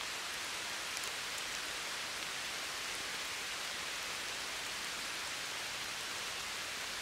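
Steady, even hiss of woodland ambience that sounds like light rain falling on foliage.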